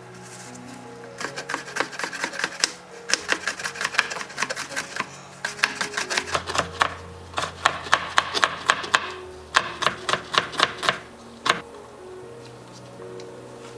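Knife chopping on a cutting board in quick runs of strokes, over background music.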